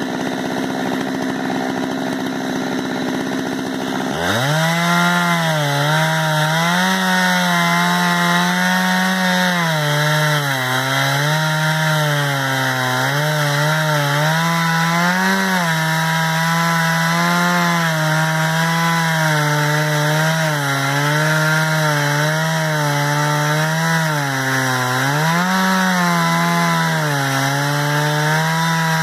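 Two-stroke chainsaw in a chainsaw mill idling, then opened to full throttle about four seconds in and ripping lengthwise through a log. The engine pitch keeps dipping and recovering as the cut loads it.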